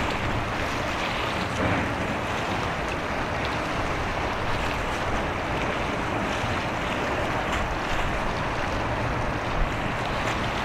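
Wind buffeting the microphone with a low rumble, over a steady rushing hiss of wind and water.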